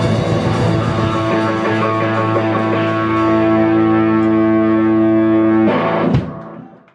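Live rock band with distorted electric guitar ringing out a long held final chord, then breaking off with one last hit near the end and dying away.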